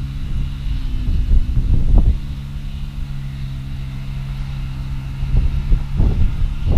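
Wind buffeting the microphone in gusts over a steady low motor hum. The gusts are strongest about two seconds in and again near the end.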